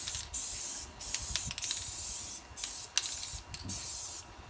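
Paint spraying in short hissing bursts, about six on-off passes, as the inside of a car roof is painted.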